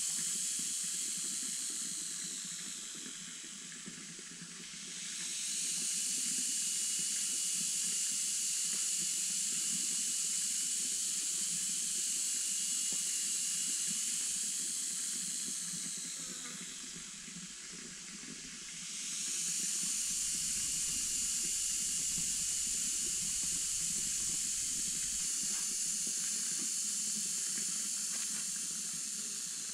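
Cicadas in a chorus: a steady high-pitched buzzing hiss that fades about four seconds in and again about eighteen seconds in, swelling back each time.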